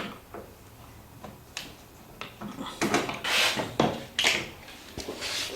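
Scattered clicks, then several louder scraping bursts in the middle as the washer dryer's top lid is unscrewed at the rear and slid off.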